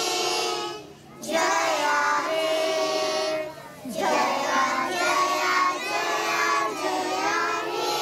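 A large group of young children singing together in unison, in phrases with short breaks about a second in and near four seconds in.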